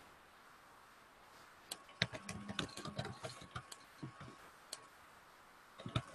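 Computer keyboard keys clicking as an email address is typed: quiet for the first couple of seconds, then a run of quick keystrokes, a short pause, and more keystrokes near the end.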